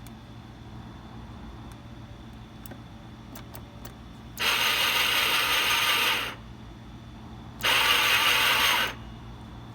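1984 Yamaha Riva scooter's electric starter cranking the engine in two tries, about 2 s and then just over a second, with a few faint clicks before; the engine does not catch: it won't start.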